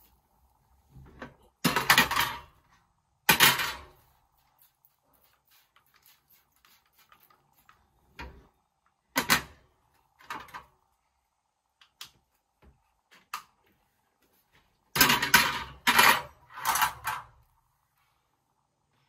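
Stovetop being cleaned: several short noisy bursts of kitchen cleaner spray-bottle squirts and a microfibre cloth rubbing over the hob and grates, with a few light clicks and knocks in between, and a quick run of three bursts near the end.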